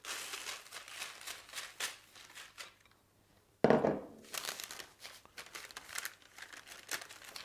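Uncooked rice poured from a bowl onto the baking-paper liner of a tart tin as pie weights for blind baking, a pattering rustle of grains, then baking paper crinkling as it is folded and pressed over the rice. A louder knock comes about halfway through.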